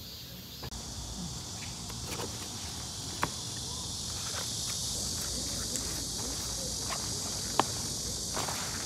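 A steady, high-pitched chorus of summer insects starts about a second in. Scattered sharp clicks and small knocks come from a backpack and paperback books being handled on stone steps.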